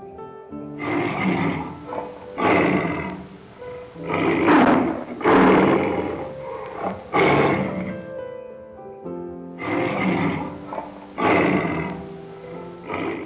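A large animal calling loudly over soft background music, about eight rough calls at irregular intervals of one to two seconds.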